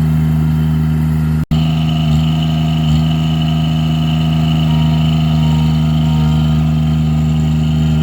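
Allmand 225 mini backhoe's engine running steadily at raised throttle, a constant even drone. The sound cuts out for an instant about a second and a half in.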